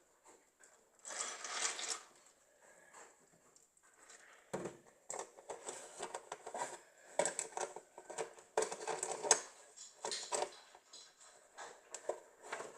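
Milk being poured over breakfast cereal in a bowl, with the milk container handled: irregular splashing, rustles and clicks in uneven spurts, busiest in the second half.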